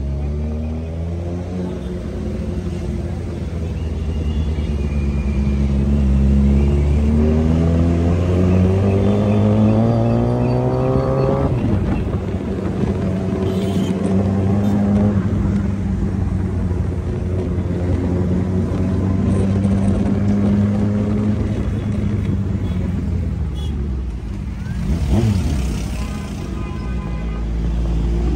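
Motorcycle engine pulling hard under acceleration, its pitch rising steadily for about eleven seconds, then dropping sharply at a gear change or throttle lift. After that it runs at a steadier pitch. About 25 seconds in, another vehicle sweeps past briefly.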